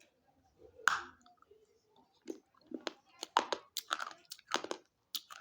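A hard chalky stick bitten off with one sharp snap about a second in, then crunched between the teeth in a quick run of gritty crunches.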